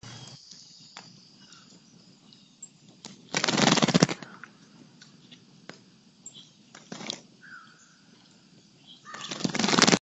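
A bird flapping its wings and splashing at a bird bath, right at the microphone: two loud fluttering bursts, one lasting under a second about three and a half seconds in and one building near the end, with small clicks and taps between.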